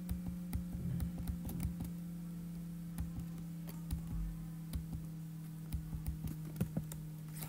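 Computer keyboard keys pressed now and then, irregular single clicks, over a steady low hum.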